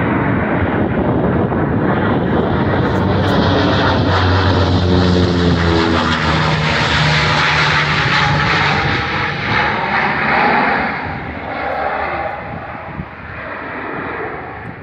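Canadair water bomber passing low overhead, its propeller engines droning loudly. The engine tone drops in pitch as the plane goes by, and the sound fades away after about ten seconds.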